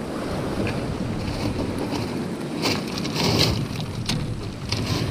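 Waves washing on a shingle beach, with wind buffeting the microphone. There are scattered short clicks, and a louder rush about three seconds in.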